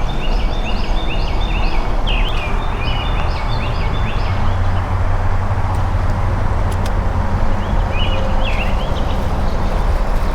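Steady rumble of highway traffic passing overhead, strongest in the low end. A small bird chirps in quick runs of short, high notes over it, mostly in the first four seconds and again near the end.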